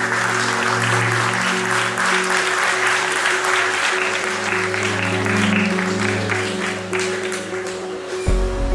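Audience applauding, starting suddenly and thinning out after about seven seconds, over background music of steady held notes; a deep bass comes in near the end.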